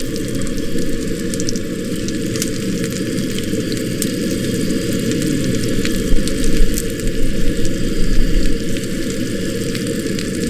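Meat patties frying in hot oil in a skillet on a propane camp stove: crackling sizzle with many small pops and spits, over a steady low roar. The sound swells louder between about six and eight seconds in.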